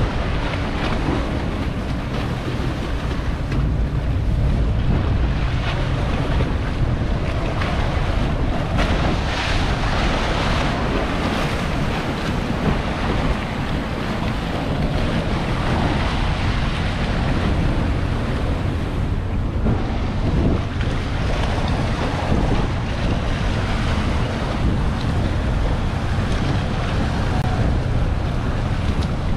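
Express cruiser's engine running at low, manoeuvring speed as it comes alongside a dock, with propeller wash churning the water and wind buffeting the microphone in a steady low rumble.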